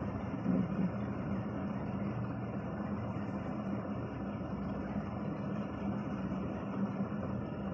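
Steady noise of city road traffic and car engines, with a faint low engine hum and no sudden events.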